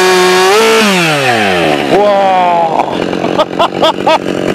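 Husqvarna 572XP two-stroke chainsaw running at full throttle in a log; about half a second in the engine speed rises briefly, then falls away as the throttle is let off. After a short throttle blip around two seconds in, it settles to an uneven idle.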